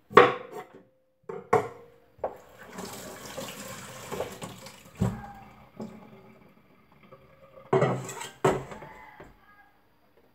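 Knocks and clatter of kitchen things at a stainless steel sink, in three sharp clusters, with water running from the tap for about three seconds in the middle.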